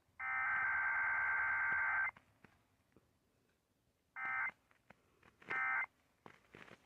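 Emergency Alert System SAME data tones from a required weekly test: one long warbling digital burst of about two seconds, then, after a pause, three short bursts evenly spaced. This is the pattern of the last header burst followed by the three end-of-message bursts.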